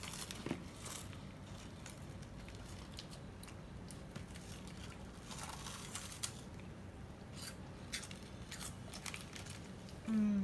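Faint, scattered crunching and chewing of a puffed corn snack stick (Umaibo), with the plastic wrapper crinkling in hand.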